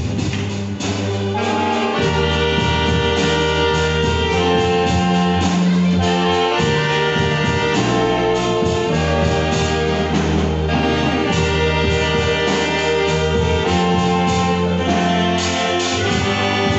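Children's ensemble of saxophones and violins playing a gospel tune in held notes over a steady bass line.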